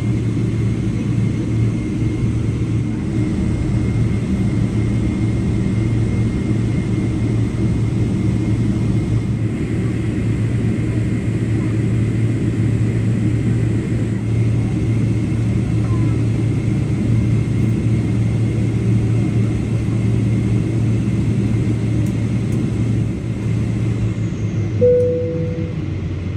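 Steady cabin rumble and hum of a Boeing 777-300ER taxiing with its GE90 engines at idle. Near the end a single short chime sounds once.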